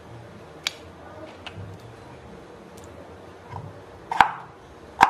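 Kitchen knife cutting a peeled potato on a wooden cutting board: a few scattered sharp knocks of the blade meeting the board, the two loudest near the end under a second apart.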